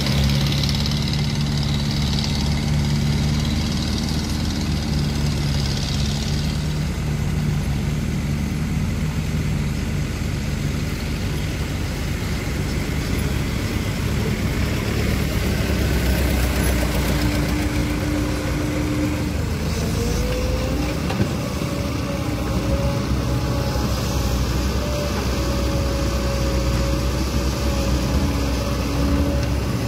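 Engines of small dump trucks running steadily as the loaded trucks drive off. Later a Caterpillar E120B excavator's engine runs under load while it digs, with a tone that rises briefly about two-thirds of the way through and then holds.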